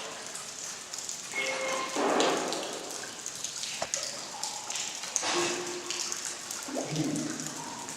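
Spirit box radio sweeping through stations: choppy bursts of static hiss broken by brief snatches of tone and garbled radio sound.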